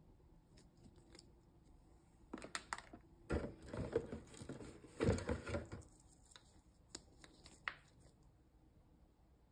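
Hands handling packaged toys: foil blind bags rustling and plastic capsule balls being set down and picked up. There are a few light clicks, then two stretches of rustling about three and five seconds in, then scattered taps.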